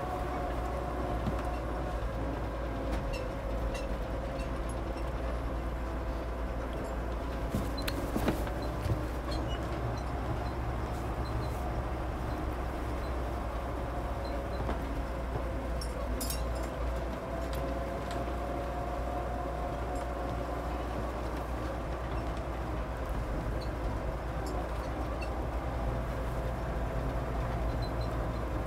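Steady low rumble of a vehicle in motion, heard from inside, with a constant drone and scattered faint clicks and rattles; a louder knock comes about eight seconds in.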